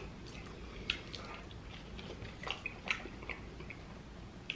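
A person chewing a mouthful of pizza close to the microphone, with scattered short wet mouth clicks and smacks.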